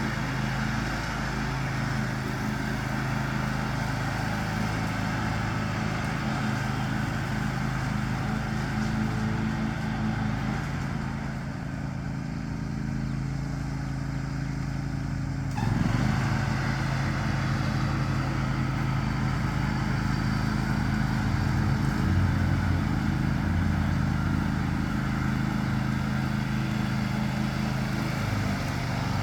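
John Deere X500 lawn tractor engine running steadily while mowing. It grows quieter for a few seconds around the middle, then steps back up in level suddenly just past halfway.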